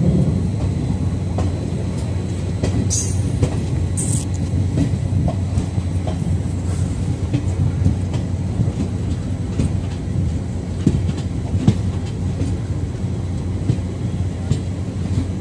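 Indian Railways passenger train running, heard from beside a moving coach: a steady low rumble of wheels on rails with many short clicks over the track. Two brief high squeals come about three and four seconds in.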